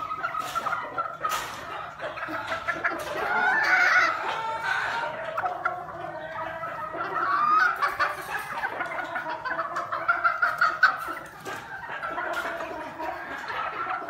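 Many gamefowl chickens clucking and calling over one another, with scattered sharp clicks.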